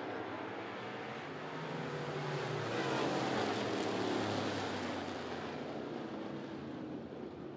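A pack of dirt-track race cars running together. The engines swell to a peak about three to four seconds in, then fade.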